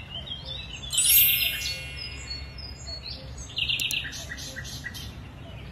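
Songbirds chirping and singing, with a loud burst of song about a second in and a run of short repeated notes later on. Two sharp clicks sound close together a little before the four-second mark.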